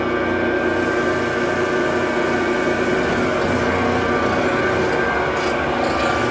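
Morbark 72-inch knife grinder running: a steady machine whine with several held tones, joined about half a second in by a high hiss.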